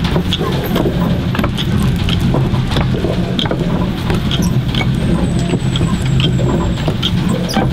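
Hand-turned stone rotary mill grinding dried corn: the upper stone turning on the lower one with a steady grinding rumble and many small clicks and crunches of grain.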